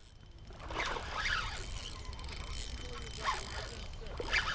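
Spinning reel being cranked to wind in line, with a few brief swishing sounds spaced about a second apart.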